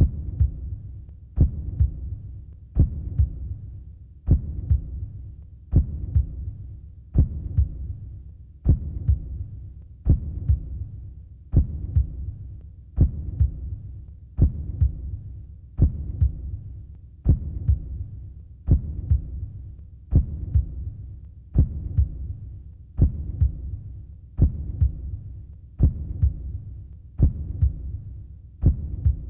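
Slow, steady heartbeat-like thudding in a soundtrack. There is one strong low beat about every second and a half, with softer pulses between, over a low steady hum.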